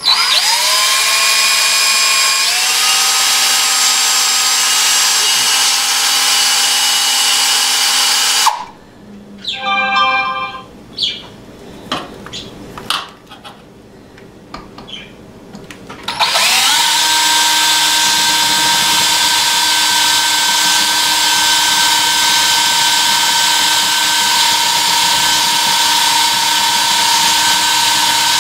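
Electric drill running at high speed, boring into the base of a bronze bullet; its whine rises as it spins up at the start and runs steadily. It stops about eight and a half seconds in, with a few quieter clicks and knocks, then starts again about sixteen seconds in and runs steadily. The bit is not cutting well: it reaches only a certain depth in the hard metal.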